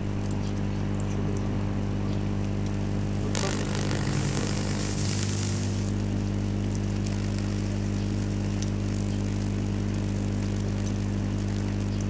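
High-voltage transformer powering a bare microwave-oven magnetron, humming with a steady mains buzz. A sizzling hiss comes in about three seconds in and dies away about three seconds later, as the neon glow lamp wired to grapes burns in the microwave beam.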